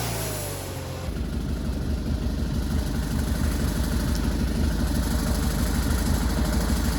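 Wood-Mizer LT40 band sawmill's engine dropping from running speed to idle about a second in, with a falling whine as it slows. It then idles steadily with a low, rapid chugging.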